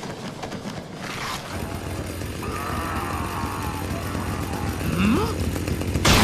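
Chainsaw motors starting up as a cartoon sound effect: a low engine rumble builds and grows louder, with a rising whine about five seconds in and the full chainsaw noise bursting in at the very end.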